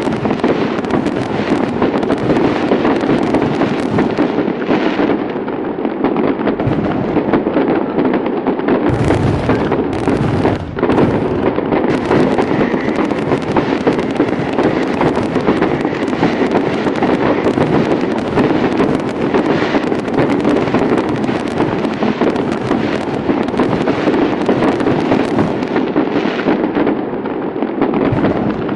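Fireworks display: a dense, continuous barrage of bangs and crackling with hardly a break.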